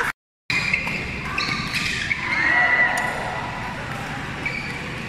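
Crowd chatter and calls from spectators in an indoor sports hall, with the mixed hum of many voices. The sound cuts out for a moment just after the start.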